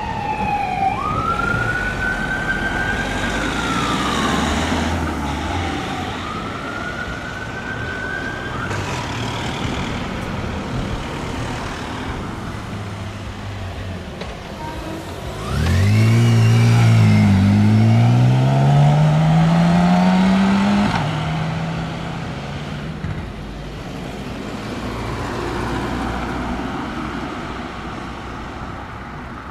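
Fire engine siren wailing, its pitch sweeping down and up a few times as the engine drives off. About halfway through, a louder vehicle engine nearby revs up, rising steadily in pitch for about five seconds before cutting off. The traffic sound then fades.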